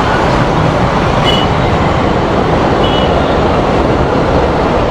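Steady, loud road and wind noise of riding through traffic, with two faint short high beeps about a second and three seconds in.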